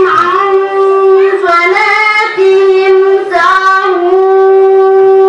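A young voice chanting Quran recitation in a melodic style, holding long, high, steady notes joined by short ornamented turns.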